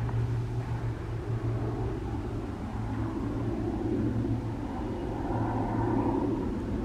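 PZL-130 Orlik propeller trainer aircraft in flight: a steady propeller hum over a rumble that swells about three seconds in and again near the end.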